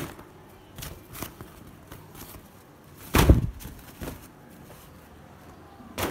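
Fabric laundry bag being handled, with brief bursts of rustling and a louder rustle about three seconds in.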